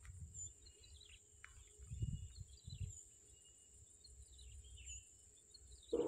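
Quiet rural pondside ambience: scattered short bird chirps over a steady high insect drone, with a few low rumbles about two and three seconds in.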